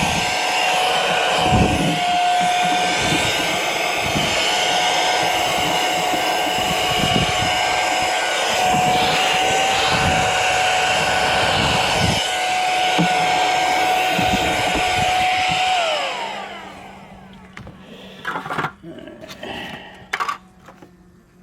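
Small handheld vacuum running steadily with a high motor whine, sucking debris out of a beehive; about three-quarters of the way through it is switched off and the whine falls away as the motor spins down. After that, a faint low hum of bees and a few knocks.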